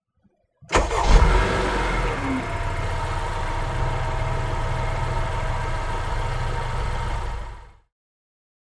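An engine starts up with a quick rev, then runs at a steady speed for about six seconds before fading out quickly.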